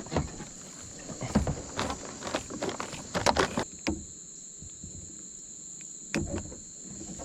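Irregular clicks and knocks from a kayak angler reeling in and handling a small fish, dense over the first few seconds with one more knock near the end. Underneath is a steady high-pitched insect drone.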